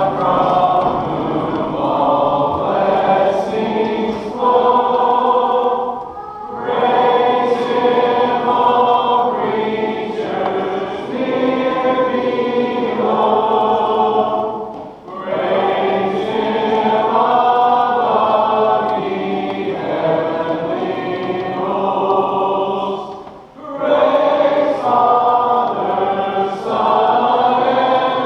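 Church congregation singing together, in long phrases with a short pause between them about every eight or nine seconds.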